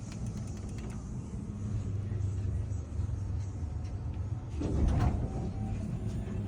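Otis service elevator car travelling up its shaft: a steady low hum and rumble, swelling louder with a brief knock about five seconds in.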